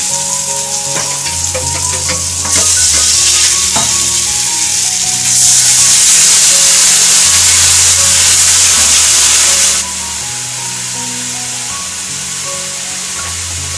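Mustard paste sizzling in hot oil in a kadai while a spatula stirs and scrapes it. About five seconds in, water poured into the pan sets off a louder, harsher sizzle, which drops back sharply about four seconds later.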